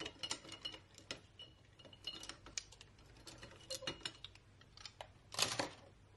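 Paintbrushes with wooden handles clicking and rattling against each other and a glass jar as a few are picked out: a string of light irregular taps, with a louder clatter near the end.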